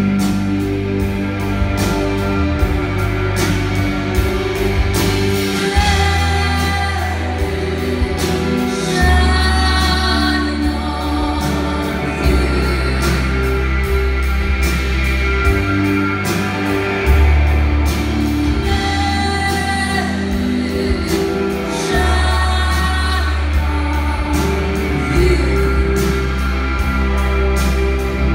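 Live rock band playing a song: sung lead vocal over held bass notes, electric guitar and a steady drum beat with regular cymbal hits.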